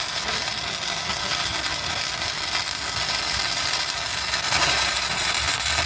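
Electric arc welding: the steady, even crackling hiss of a welding arc held through one continuous bead. Afterwards the crew judge the weld to have sounded good.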